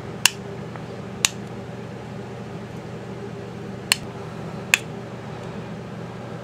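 Four short, sharp clicks from an empty aluminium soda can and a needle being handled as the needle bends the can's punched steam ports to an angle, over a steady low hum.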